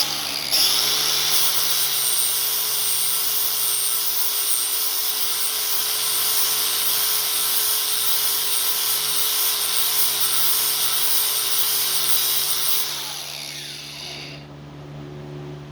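Electric sanding tool switched on, running steadily with a constant motor whine and a gritty abrasive hiss for about thirteen seconds, then switched off and winding down with a falling pitch.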